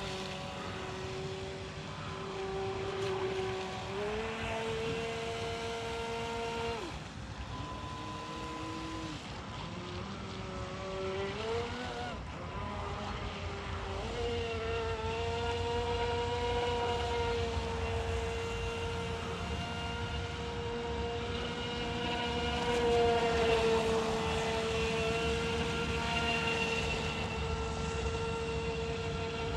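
Proboat StealthWake 23-inch deep-V RC boat's brushed electric motor whining as it runs on a 2S LiPo pack. The pitch steps up about four seconds in, drops around seven seconds, climbs again around twelve seconds and holds steady from about fourteen seconds on as the throttle changes.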